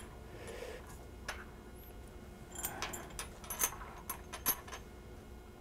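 Small teleprompter tablet-holder brackets clicking lightly against each other and the countertop as they are picked up, counted and set down: a soft rustle, a lone click, then a scatter of sharp ticks between about two and a half and four and a half seconds in.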